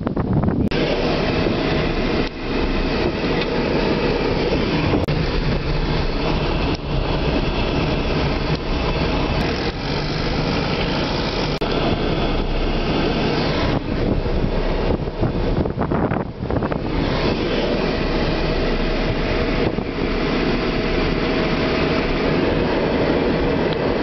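Car driving across a wooden plank bridge: engine and tyres running with a steady rumble, and irregular knocks as the wheels cross the planks.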